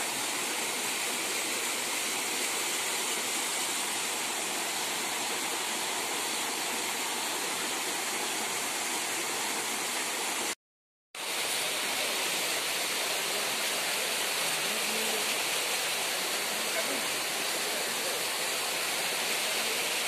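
Waterfall cascading down steep rock slabs: a steady, dense rush of falling water. The sound drops out completely for about half a second around halfway through.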